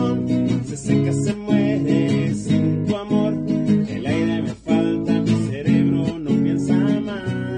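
Acoustic guitar strumming chords in the instrumental ending of a Spanish-language worship song.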